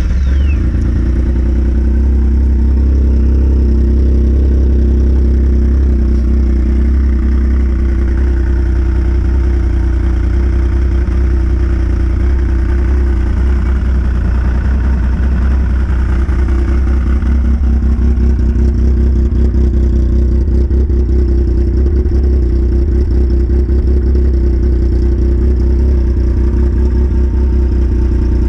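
Yamaha RS Vector snowmobile's four-stroke three-cylinder engine idling steadily.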